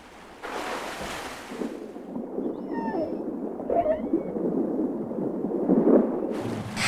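Killer whales calling underwater: two short bursts of gliding, squealing calls in the middle, over a steady rush of water noise.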